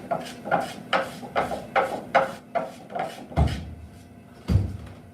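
A Japanese hand tool working wood in quick rhythmic strokes, about two a second, as the wood is taken down from both sides. The strokes fade out after about three seconds, and two deep thumps follow near the end.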